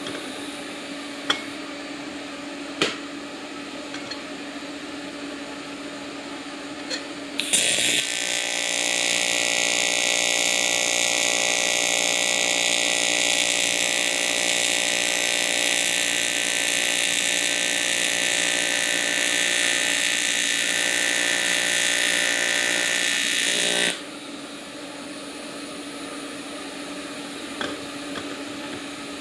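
AC TIG welding arc on a 16-gauge aluminum tube: a loud, steady buzz with hiss that starts about eight seconds in and cuts off sharply about 24 seconds in. Before and after it, a quieter steady hum with a few clicks.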